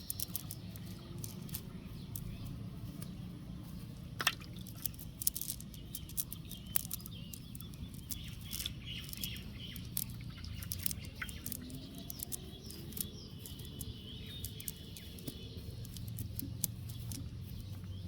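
Small birds chirping over a steady low rumble, with many scattered sharp clicks, the strongest about four seconds in.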